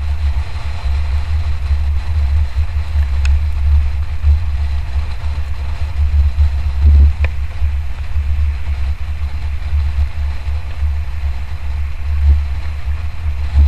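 Wind buffeting a helmet or action-camera microphone on a fast mountain-bike descent, a steady fluttering rumble, with a few sharp clicks and knocks from the bike over rough ground.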